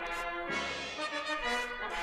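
Music: brass instruments playing a melody in held notes that move from pitch to pitch.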